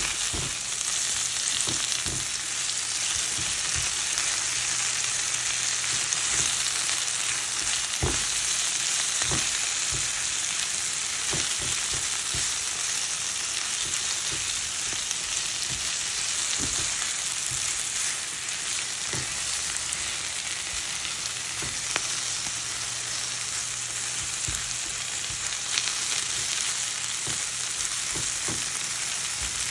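Sliced zucchini, onion, spinach and bell pepper sizzling steadily in a nonstick frying pan, with scattered light clicks and scrapes from a spatula stirring them.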